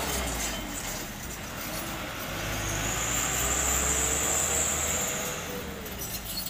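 Mitsubishi Fuso dump truck's diesel engine running as the truck drives along the road, a low steady hum with a slowly gliding note. A thin high whine runs for about three seconds mid-way.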